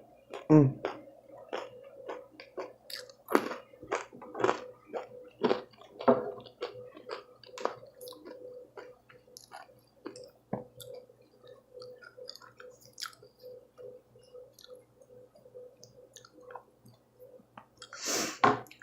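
Close-up mouth sounds of someone chewing crunchy fried stuffed nachos: many short crunches and wet smacks, frequent in the first half and sparser later. A faint steady hum runs underneath.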